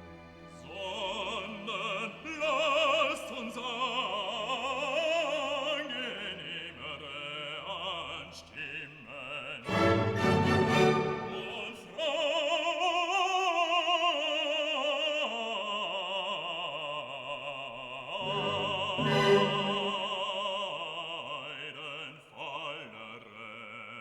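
Operatic singing with orchestral accompaniment: a voice holds long notes with wide vibrato over sustained strings.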